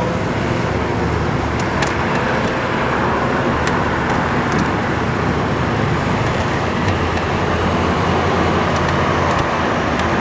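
Steady rumble and road noise of a moving vehicle heard from on board, with a low hum and a few faint ticks.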